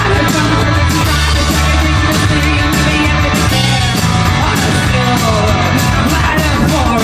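Live rock band playing loud through a PA: electric guitar and drum kit keeping a steady beat, with a voice singing over them.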